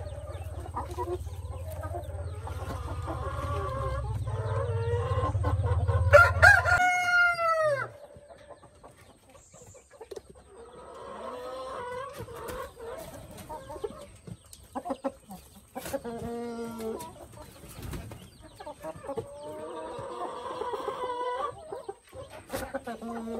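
Brahma chickens: a rooster crows once, long and loud, about six seconds in, over a low steady hum and hen clucking; the hum stops as the crow ends, and hens then cluck in short spells.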